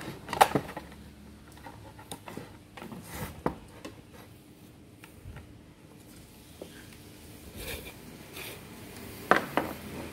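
Hard plastic clicks and scraping as a flat metal tool pries at the rear cover of a Philips Diva steam iron. There is a sharp snap about half a second in, faint small taps and scrapes after it, and two or three sharp clicks near the end.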